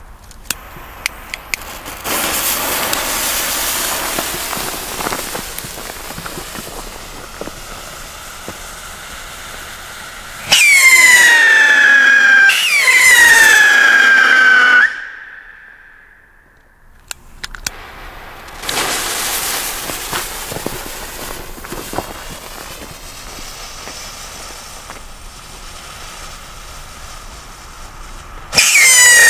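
Firework fuses hissing, then two whistling rockets taking off a couple of seconds apart, each a loud whistle falling in pitch for about two seconds. After another stretch of fuse hiss, a third whistling rocket goes up near the end.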